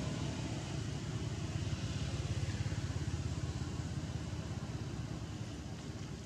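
An engine running steadily with a low, rapid pulsing throb, a little louder a couple of seconds in and easing slightly toward the end.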